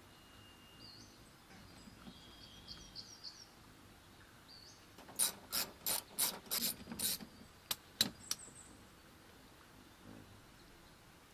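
A quick run of about nine sharp clicks over some three seconds, typical of a hand ratchet being worked on the fasteners under the car.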